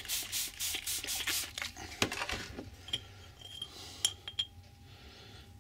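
Tea strainer of scenic grass being shaken to sift it onto a model railway baseboard, a rhythmic rasping at about four strokes a second that stops after about a second and a half. Then a few light knocks and small metallic clinks.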